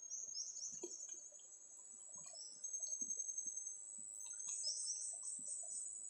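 A high, steady drone of forest insects with pulsing, falling chirps layered over it, busiest a little after the middle.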